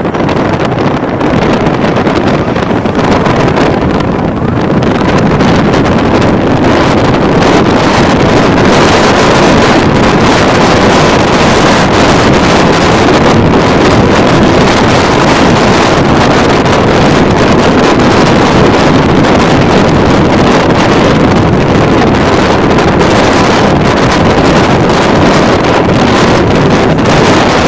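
Loud wind buffeting the microphone of a camera filming from a moving vehicle, mixed with the vehicle's engine and road noise; it grows a little louder about five seconds in and then holds steady.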